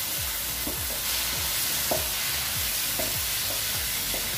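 Wooden spatula stirring thick chicken roast in a nonstick frying pan, about two scraping strokes a second over a steady sizzle of frying.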